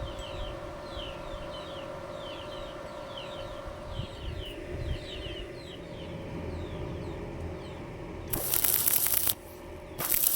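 Stick-welding arc on a 2.6 mm electrode at 100 amps, struck in two short bursts of loud crackling sizzle about a second each near the end: spot welding rather than a continuous bead. Before the arc, birds chirp again and again over a steady hum.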